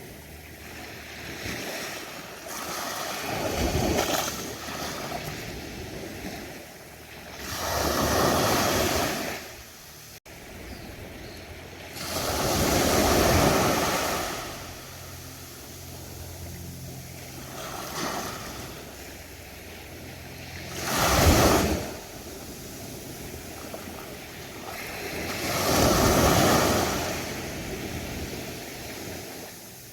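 Ocean waves breaking on a beach, each surging up and falling away about every four to five seconds, over a constant wash of surf.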